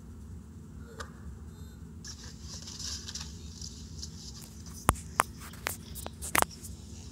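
Water hissing from a backyard slip 'n slide while a child slides over the wet plastic. A few sharp slaps or clicks come about five to six seconds in.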